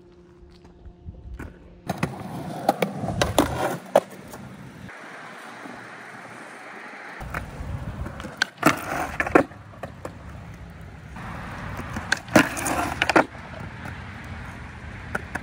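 Skateboard wheels rolling on concrete, with three bursts of sharp clacks and scrapes as the board pops and hits a painted concrete curb: about two seconds in, near the middle, and a few seconds before the end.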